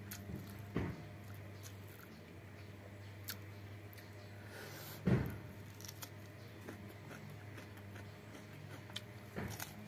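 Close-up eating by hand: fingers picking through rice and stew, with small wet clicks and chewing, and one louder knock about five seconds in, over a low steady hum.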